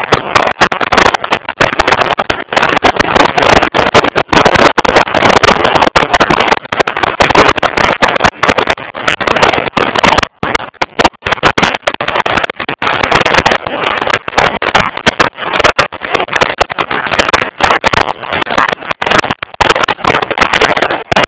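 Wind buffeting the microphone of a camera mounted on a moving motorcycle: a loud, rough rushing that keeps cutting in and out.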